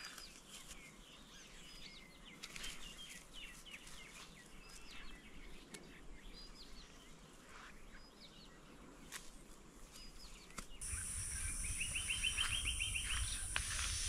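Small wild birds chirping in short calls, with a few faint clicks. About eleven seconds in the sound changes abruptly to wind buffeting the microphone, over which a bird gives a rapid trill of evenly spaced notes.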